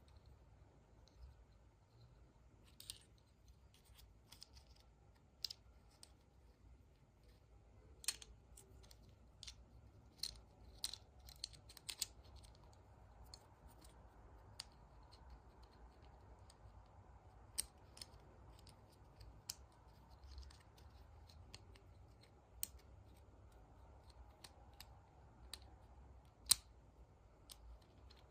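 Faint, irregular clicks and snips of small packaging being handled and opened by hand, with a sharper click about 26 seconds in.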